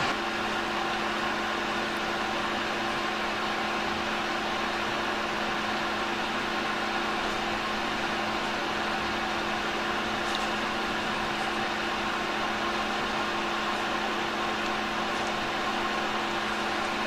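Steady whirring hum of a small electric fan or blower with an even hiss of moving air, unchanging in pitch and level.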